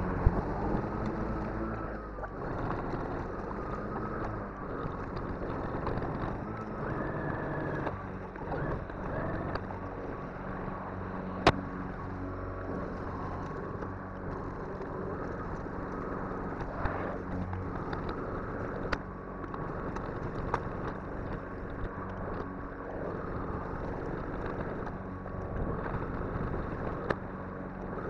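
Atlas 80V battery-powered self-propelled lawn mower running as it cuts grass: a steady motor-and-blade hum that wavers a little in pitch. A single sharp click sounds about eleven seconds in.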